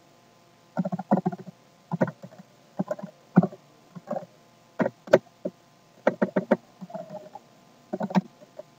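Computer keyboard typing: irregular clusters of short key clicks as code is typed.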